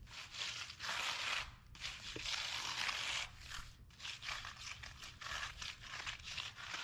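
Irregular scraping and crunching strokes. The strokes of the first three seconds are the longest, each about half a second to a second; the rest are shorter and quicker.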